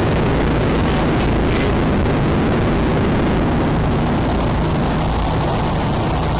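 An engine running steadily under a heavy, even rushing noise, with the wind on the microphone.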